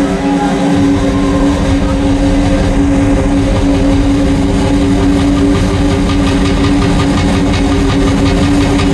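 Live rock drum kit played hard and fast, dense drum and cymbal strokes over a sustained low droning chord, loud and amplified in an arena.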